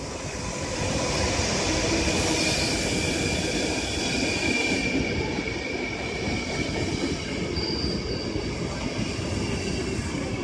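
ÖBB electric locomotive and double-deck coaches running past along the platform: a steady rumble of wheels on rail, loudening about a second in, with a thin high squeal from the wheels.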